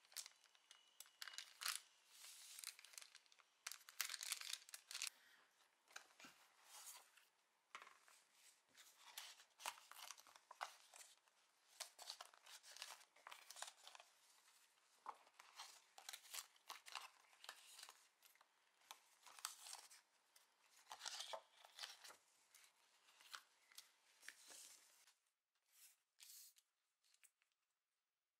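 Faint, close crinkling and rustling of a paper packet and a clear plastic sleeve of stickers being handled and peeled, in many short, sharp crackles. It stops about 25 seconds in.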